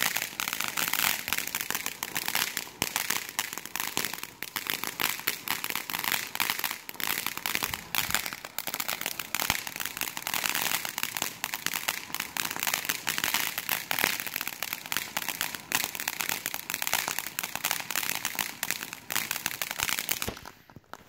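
Ground fountain firework spraying sparks: a dense crackling hiss of rapid pops that stops abruptly near the end.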